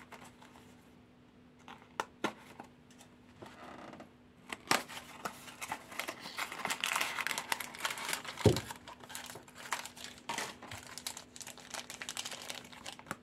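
A few light clicks as a small cardboard box is opened, then a crinkly plastic packet crackling steadily as it is pulled out and handled, with one sharp knock partway through.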